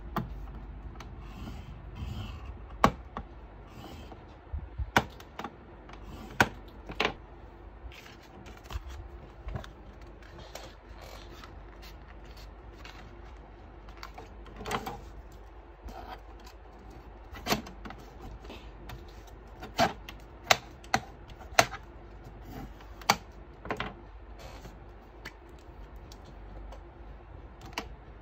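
Black cardstock being scored with a bone folder and folded by hand on a plastic scoring board: irregular sharp clicks and taps on the board, with soft paper rustling and creasing between them.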